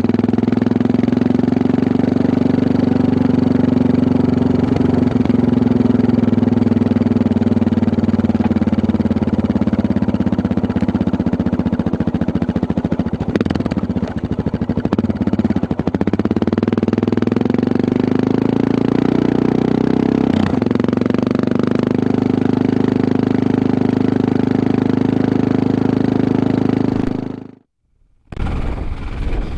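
Suzuki DR650's single-cylinder four-stroke engine running under load on a climb, its pitch rising and falling with the throttle, with a couple of brief throttle-offs for gear changes midway. The sound cuts out for about a second near the end.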